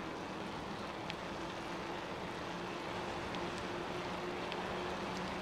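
Bicycle tyres rolling on an asphalt road, with wind noise: a steady hiss with a faint, even low hum underneath and a few light ticks.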